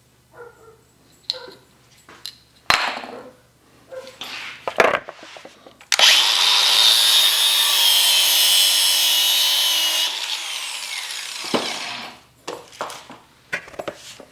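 Power saw cutting through a length of wire-reinforced hydraulic hose, giving off burnt rubber: after a few handling knocks it runs loud and steady with a whine for about four seconds, then spins down. Short knocks of the hose being handled follow.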